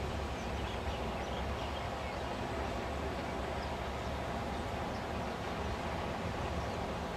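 Steady beach ambience: a continuous rumbling wash of surf and wind noise, with no distinct events.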